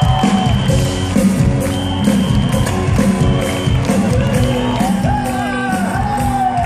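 Live band comes in suddenly with a steady drum beat, bass and held keyboard chords, with the crowd cheering and whooping over it.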